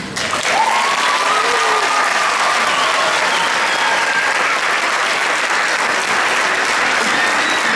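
Audience applauding steadily in a theatre hall, with a few cheering voices near the start.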